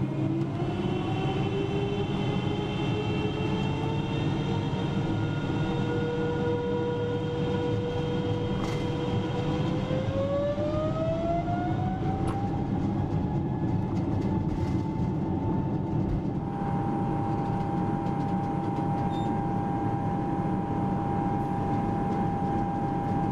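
Boeing 777-300ER's GE90 turbofan engines at takeoff power, heard from inside the cabin: a steady rumble under an engine whine that rises in pitch, climbs again about ten seconds in, and changes abruptly to a steadier tone about sixteen seconds in.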